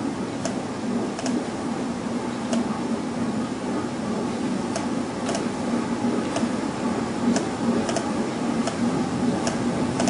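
Computer mouse button clicking about ten times at uneven intervals, sharp separate clicks as hotspot rectangles are drawn and a dialog is dismissed, over a steady background hum and hiss.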